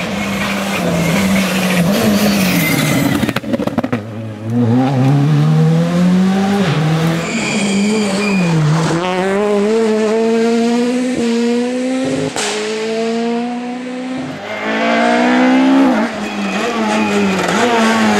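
Rally car engines revving hard and climbing through the gears, the pitch rising and dropping at each shift, over several passes. A brief high squeal comes about seven to eight seconds in.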